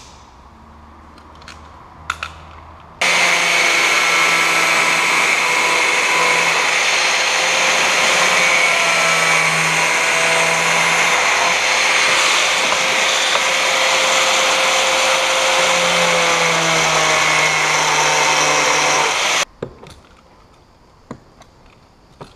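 Angle grinder cutting a notch through a plastic bumper cover: it starts about three seconds in, runs steadily with a whine over the hiss of the cut, and stops abruptly a few seconds before the end. A few light clicks of handling the plastic come before and after.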